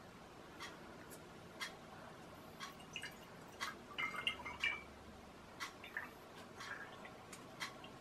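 Liquid dripping and squirting from a syringe through a small plastic funnel into a bottle, with a cluster of drips about four seconds in. A steady tick about once a second runs under it.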